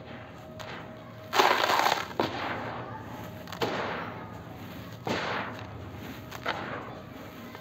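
Hands scooping and squeezing dry, grainy powder in a bowl: a loud crunching, hissing burst about a second and a half in, then four shorter crunches, with the powder pouring off the hands.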